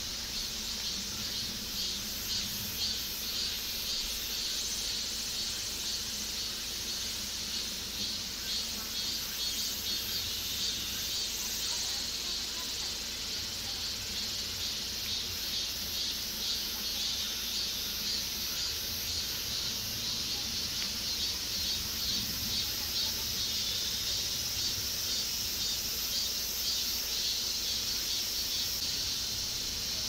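Steady chorus of insects shrilling, a rapid high-pitched pulsing that carries on without a break.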